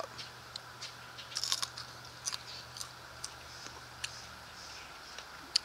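A person biting into a small, crunchy Biquinho pepper and chewing it. A cluster of crisp crunches comes about a second and a half in, then single crunches every half second or so, with one more near the end.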